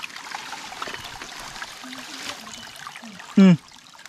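Shallow forest stream trickling and burbling over rocks. About three and a half seconds in, a single short, loud call falls in pitch.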